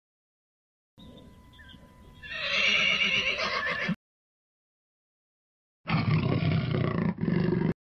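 Recorded animal calls played back by an animal-sounds app: a horse whinnying that starts faint, swells about a second later and cuts off abruptly, then after a two-second pause a jaguar growling in two parts with a brief break between them.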